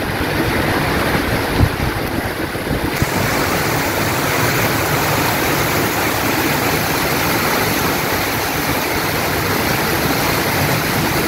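Heavy rain pouring down in a dense, steady hiss. There is one short thump about a second and a half in, and the hiss turns brighter about three seconds in.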